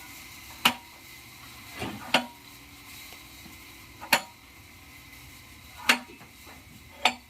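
Five sharp clanking knocks, one every second or two, each with a brief ring, over a steady high hiss.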